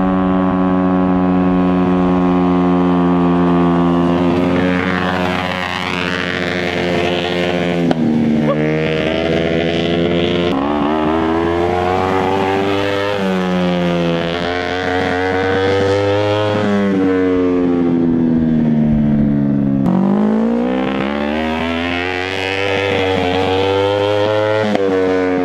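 Kawasaki Ninja 250 parallel-twin motorcycle engine in an off-road buggy, driven hard. The engine note holds high, then rises and falls several times with the throttle, with sharp drops in pitch before it climbs again.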